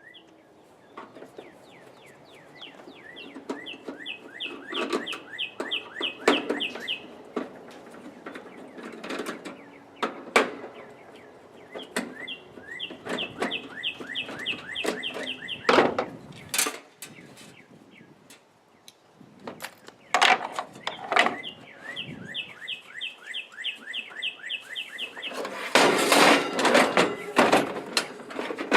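Knocks, clicks and metal clatter from a toaster oven being taken apart, louder and denser near the end, with three runs of several seconds of rapid, evenly spaced high chirps.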